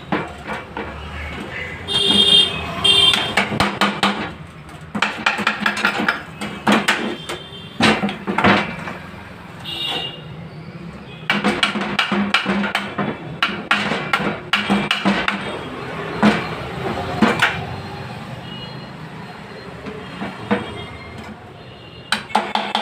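Repeated lump-hammer blows on the metal crankcase of a Hero Honda Splendor NXG motorcycle engine, knocking the case apart. The strikes come in irregular runs of quick blows, some of them ringing.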